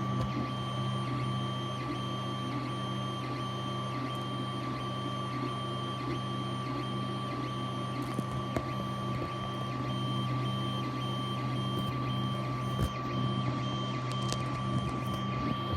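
3D printer running: a steady hum and fan-like noise with a constant high tone, and a lower tone that switches on and off about twice a second as the machine moves.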